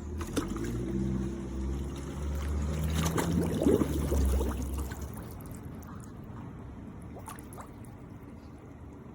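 Robotic pool cleaner's motor humming with water splashing and trickling. The hum dies away about five seconds in, leaving faint water noise.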